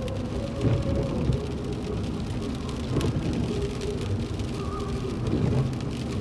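Car driving on a wet road, heard from inside the cabin: a steady low rumble of tyres and engine, with rain hitting the windshield.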